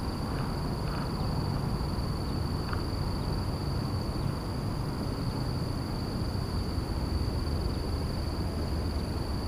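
Steady, high-pitched insect chirring, one unbroken tone with a fainter higher one, over a steady low rumble of outdoor noise, with a few faint ticks.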